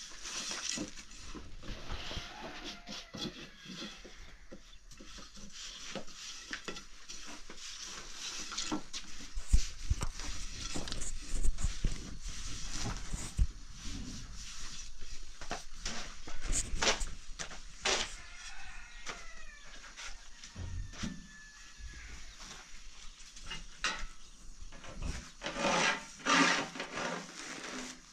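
Farm animals calling a few times, over many short knocks and clatters.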